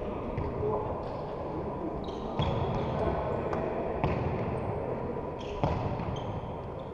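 Three sharp knocks about a second and a half apart over a steady background murmur.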